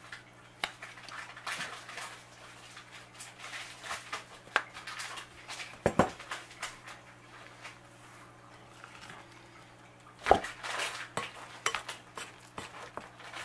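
A metal utensil stirring a thick squash, cornmeal and flour batter in a glass mixing bowl, with irregular scraping and clinking against the glass. Two louder knocks come about six and ten seconds in.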